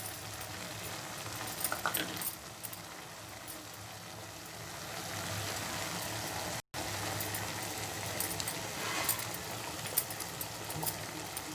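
Ground coconut paste being scraped from a mixer jar into a simmering pot: light scrapes and clicks over a low steady hum, broken by a brief silent cut near the middle.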